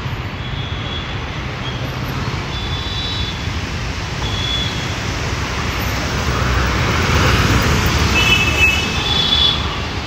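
Busy city road traffic: cars, motor scooters and motorcycles passing in a steady stream, swelling louder as vehicles pass close about seven to nine seconds in. Short high-pitched tones sound a few times over the traffic.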